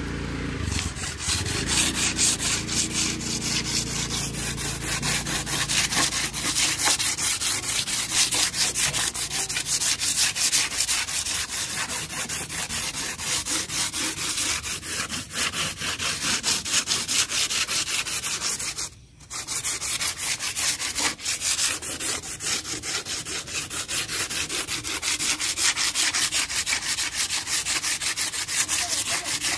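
Sandpaper rubbed by hand over the epoxy-coated wooden hull of a boat in quick, even back-and-forth strokes, with a brief pause about two-thirds of the way through. It is sanding off the rough spots left by the cured epoxy before painting.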